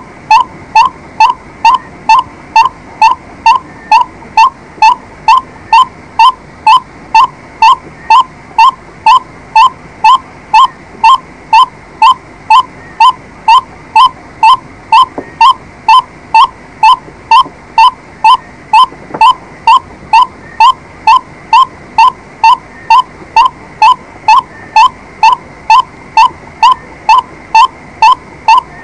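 White-breasted waterhen calling: one short note repeated at an even pace, nearly two a second, without a break.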